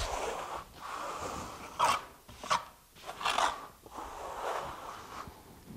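Trowel scraping and rubbing over wet EIFS base coat as fiberglass mesh is embedded into it, in a series of uneven strokes, a few of them sharper than the rest.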